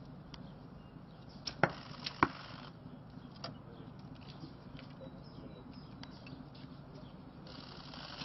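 Traditional recurve bows being shot. Two sharp snaps come about half a second apart, around a second and a half in, and another pair comes at the very end.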